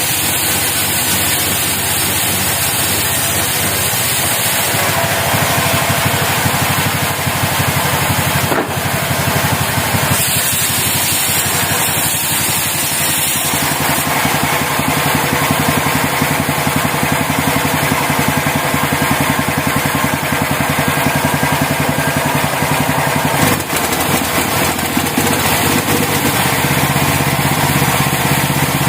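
Engine of a portable band sawmill running steadily, its sound shifting slightly about five seconds in and again about halfway through.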